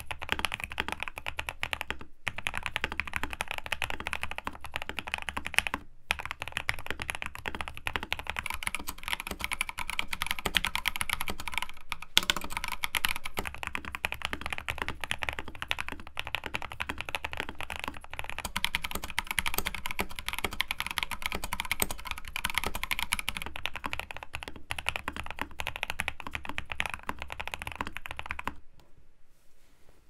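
Fast two-handed typing on a Next Time 75 keyboard with lubed Durock Moss linear switches, PBT keycaps, an aluminium plate and PE foam and tape mods: a dense, continuous run of keystrokes with a few brief breaks, stopping about a second before the end.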